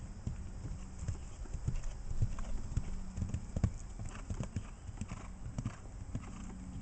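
A horse cantering on grass and jumping small fences: a quick, uneven run of dull hoofbeats, loudest around the middle.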